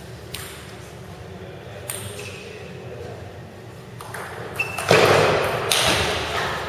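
Table tennis ball being hit and bouncing on the table during a rally: a series of sharp clicks that echo in a large hall. About five seconds in comes a loud burst of noise that dies away over a second or so.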